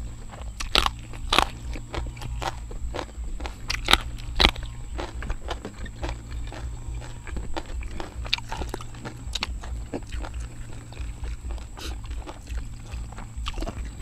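Close-up eating: people biting and chewing crunchy raw vegetables and papaya salad, with several loud crunches in the first five seconds, then softer, steady chewing.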